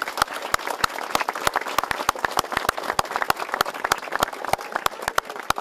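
A crowd applauding: many people clapping their hands together in a dense, steady patter of handclaps.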